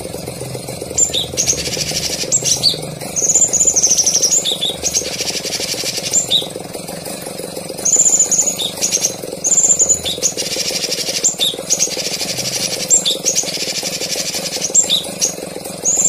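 Songbird singing a training recording of rapid high chirps and short arched whistled notes, repeated in phrases, over a faint steady hum.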